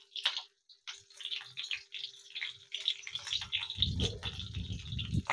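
Marinated fish pieces, green chillies and curry leaves sizzling and crackling in hot mustard oil on an iron tawa, with lots of small pops. About four seconds in, a low rumbling joins as metal tongs reach into the pan.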